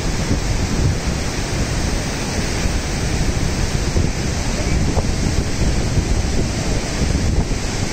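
Steady rush of a fast mountain river running white over rocks, with wind buffeting the microphone.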